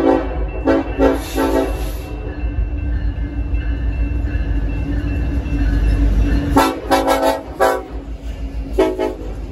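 Horn of an EMD SD70ACe-led freight train sounding a chord in short blasts near the start, again about six and a half seconds in and near the end, over the heavy rumble of the diesel locomotives running up close.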